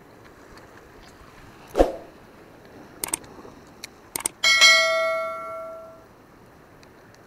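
Subscribe-button sound effect: quick mouse clicks followed by a bell ding that rings out and fades over about a second and a half. A single dull thump comes about two seconds in.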